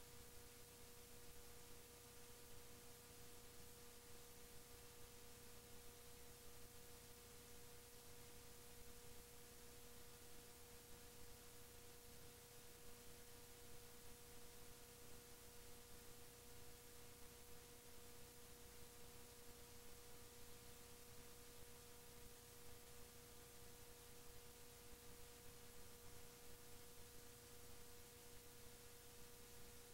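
Near silence: faint tape hiss with a steady electrical hum tone from a VCR playing blank videotape.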